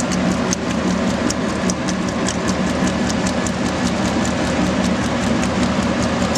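Shaking table (gravity concentrator) running: a steady motor hum with the head motion mechanism clacking rhythmically, about four clicks a second, as the deck reciprocates.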